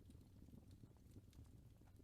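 Faint fireplace crackling: scattered small pops and snaps over a low, steady rumble.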